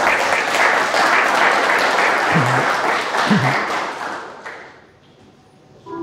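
Audience applauding in a hall, many hands clapping, then dying away over the last couple of seconds. Music starts right at the end.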